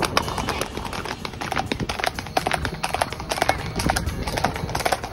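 Horses' hooves clip-clopping on a paved road in a quick, uneven rhythm of several hoofbeats a second.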